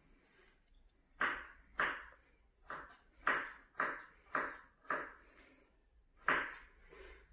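Metal spoon tapping against a balot's eggshell to crack it: about eight sharp taps, each with a brief ring, in an uneven rhythm, the last after a pause of more than a second.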